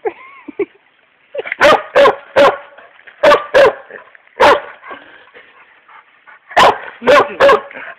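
A dog whines briefly, then barks at a rock in the creek water: short, sharp barks in quick bursts of one to three, about nine in all.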